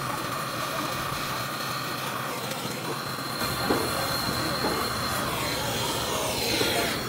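Brazing torch flame hissing steadily as it heats a copper tube joint onto a steel freezer condenser line, with a faint falling tone near the end.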